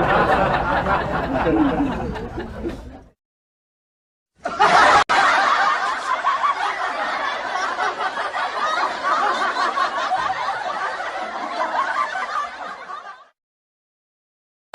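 Laughing sound effects, one after another: a laugh that dies away about three seconds in, then, after a second of silence, a longer stretch of laughter that fades out around thirteen seconds.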